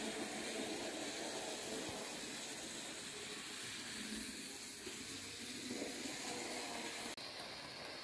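Forty-year-old N scale model train, an electric locomotive with passenger coaches, running along the track: a steady, faint hissing whir of its small motor and wheels. The sound drops out for an instant near the end.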